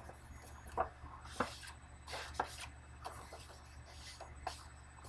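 Craft tools and cardstock handled on a tabletop: soft rubbing and scuffing, with a few sharp light knocks spread through.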